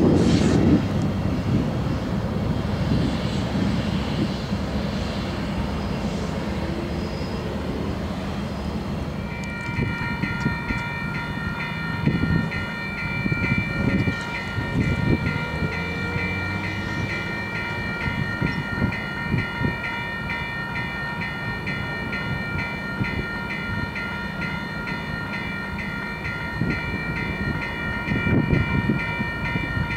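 Union Pacific freight train with diesel locomotives rumbling past. About ten seconds in, a railroad grade crossing's warning bell starts ringing steadily in a quick repeating pattern, over a low rumble that swells now and then.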